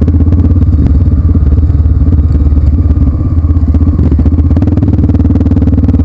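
Off-road trail motorcycle engine running steadily close by, a loud, even rapid chugging with no change in speed.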